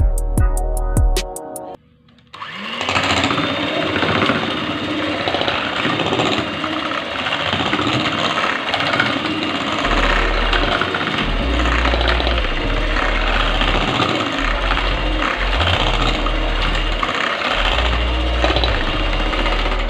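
Electric hand mixer running steadily, its beaters whirring through chocolate and whipped cream in a stainless steel bowl. It starts about two and a half seconds in, after a short burst of background music.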